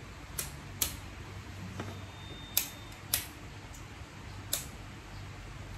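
About seven short, sharp clicks at irregular intervals over a faint low hum, like light handling noise.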